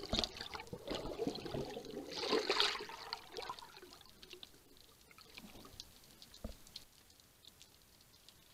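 Water bubbling and splashing near the surface, heard underwater. It is busiest in the first few seconds, then dies away to faint scattered clicks.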